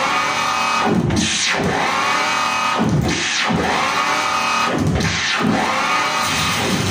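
Harsh noise electronics played live: a dense, loud wall of distorted noise with a sweep through the pitch range that comes back about every two seconds.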